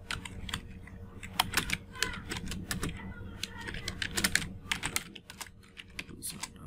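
Computer keyboard typing: quick, irregular keystrokes with short pauses between runs.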